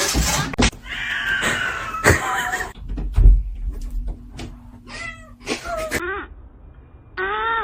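Cats meowing several times, in short calls that bend up and down in pitch, with scattered knocks and a loud thump about three seconds in.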